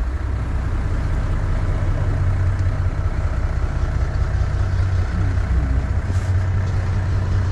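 Charter boat's engine running with a steady low drone.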